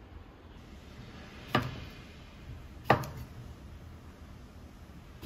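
Chef's knife chopping through a cucumber onto a wooden cutting board: three separate sharp chops, a second or two apart.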